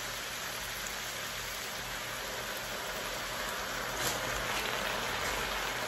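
Vegetables (bok choy, carrots and bell pepper) sizzling steadily in a hot cast-iron wok, with a few faint pops.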